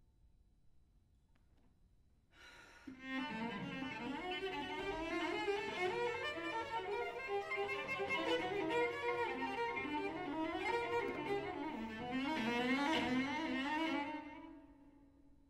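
Solo cello, bowed: after a pause, a fast, busy passage of many quickly changing notes comes in about two seconds in and dies away near the end.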